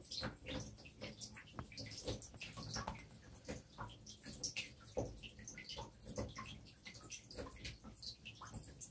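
Irregular soft clicks and crackling rustles as a Burmese python's coils shift around the rabbit it is constricting.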